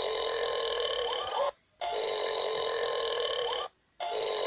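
A long burp played over and over, each play lasting about two seconds. The burp is cut off by a short silence a bit over a second in and again near the end, then starts once more.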